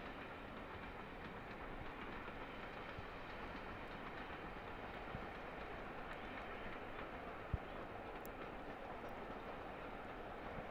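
Distant diesel locomotive hauling passenger coaches along the line, a faint steady running noise. One brief knock about seven and a half seconds in.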